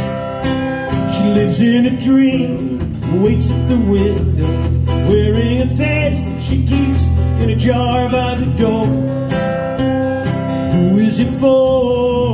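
A small live band playing: strummed acoustic guitars over electric bass and drum kit, with a flute carrying wavering held notes above.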